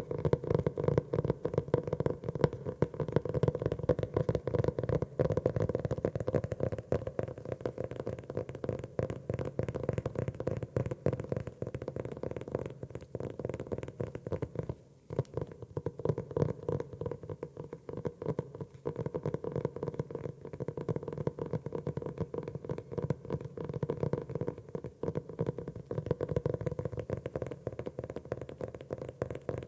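Rapid, continuous tapping on a notebook, many light taps a second with a hollow, low resonance, pausing briefly about halfway through.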